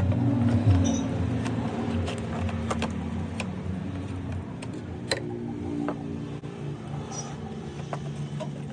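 A motor running steadily with a low hum, with scattered metallic clicks and taps through it and a sharper click about five seconds in.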